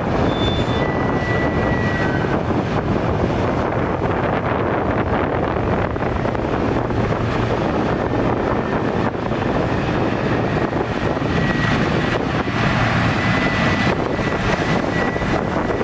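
Heavy diesel construction machinery running steadily, a continuous engine drone with a low hum, with wind buffeting the microphone. A thin high whine comes in briefly near the start and again in the second half.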